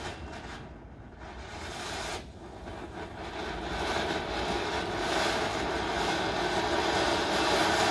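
Large flower pot (anar) fountain firework spraying sparks: a steady hiss that grows steadily louder from about two seconds in.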